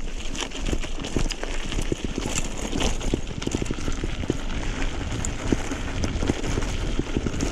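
Mountain bike rolling down a rough, rocky dirt track: tyres on loose gravel and stones give a dense, irregular rattle of small clicks and knocks over a constant low rumble.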